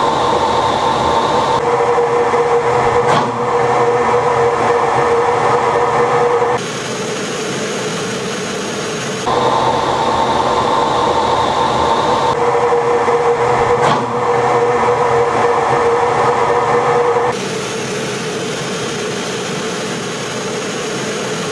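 Steady jet-engine and airflow noise inside the cockpit of a Su-25 attack jet in flight: a loud rushing roar with a held whine, its level and tone shifting abruptly several times. A brief sharp click about three seconds in and again around fourteen seconds in.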